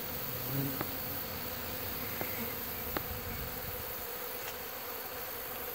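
A large, disturbed honey bee colony buzzing steadily around its opened hive, with a few faint clicks. The bees are agitated after an attempt to take honey frames from the hive.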